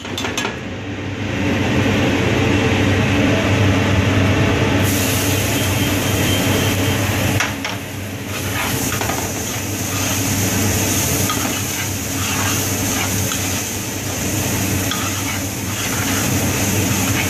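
A metal spoon stirring and scraping rice as it fries in oil in a large metal pan, with repeated light clinks and scrapes over a steady low hum.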